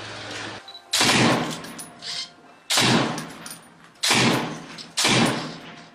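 Single shots from a Kalashnikov-type assault rifle: four loud cracks fired irregularly about a second to a second and a half apart, each followed by a long echo.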